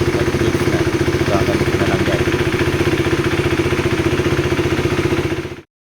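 KTM Duke 390's single-cylinder engine idling steadily with an even firing beat, running smoothly now that the faulty throttle position sensor has been replaced and the misfire is gone. It cuts off suddenly near the end.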